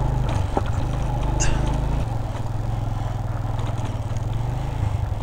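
Motorcycle engine running steadily on a rough gravel track, its note changing about two seconds in.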